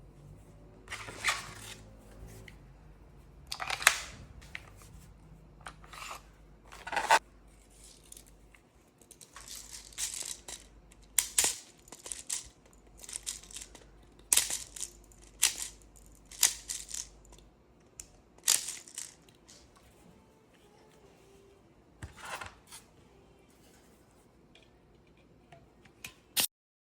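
A series of short, irregular scraping or tearing noises, about fifteen in all, with a single sharp click near the end.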